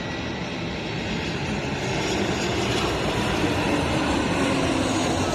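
Jet airliner engine noise, a steady rushing sound that grows a little louder about two seconds in and holds.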